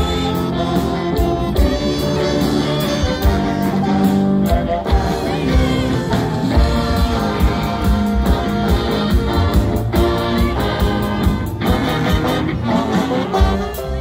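Youth funk orchestra playing live: saxophones, trumpets and trombones playing over a steady beat.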